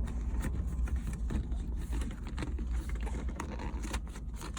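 Hands fitting a new shift boot into a car's console: scattered light clicks and scrapes over a steady low rumble.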